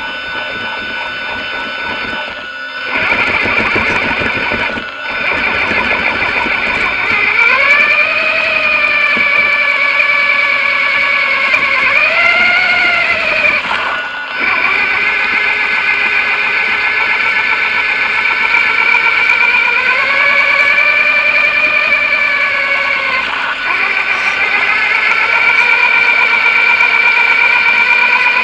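Arrma Big Rock 3S RC truck's sensored brushless motor whining, its pitch rising and falling with the throttle over a steady rushing noise as it drives through shallow water. The sound breaks off abruptly a few times.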